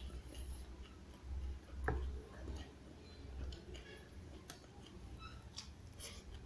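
Faint eating sounds: small irregular clicks and smacks from chewing and from a metal spoon, with one sharper knock about two seconds in, over a low steady hum.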